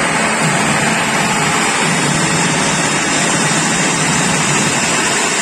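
Steady, loud machinery noise of a railway bogie workshop: an even mechanical hum and hiss with no distinct strokes.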